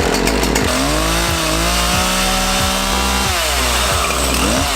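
Craftsman two-stroke chainsaw running just after its carburetor was adjusted: it revs up about half a second in, holds high for a couple of seconds, drops back toward idle, and revs briefly again near the end.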